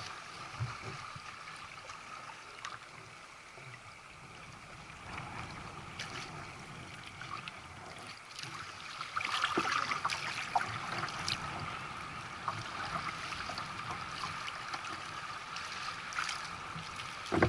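Sea water lapping and splashing around sea kayaks, with small splashes and drips, growing louder and busier about nine seconds in.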